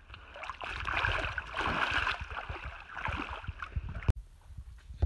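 Shallow marsh water sloshing and splashing as someone wades through it, strongest in the first two seconds and fading out, then a single sharp click about four seconds in where the sound cuts off.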